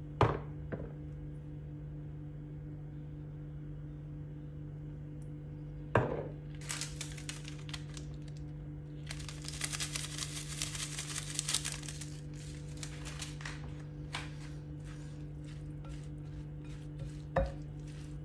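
Seasoning granules shaken from a foil sachet into a glass bowl of chopped vegetables: a dense, dry patter with packet crinkling for about three seconds near the middle, after shorter rattling shakes. Sharp clicks against the glass bowl come at the start, about six seconds in and near the end, over a steady low hum.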